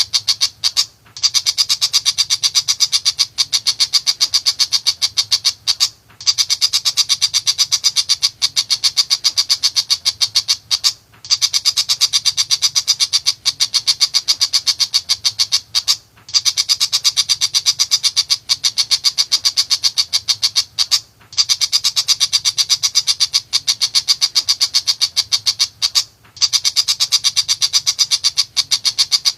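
Tiger shrike (pentet macan) singing: long runs of rapid, high-pitched repeated notes in bouts of about five seconds, each broken off by a pause of under a second.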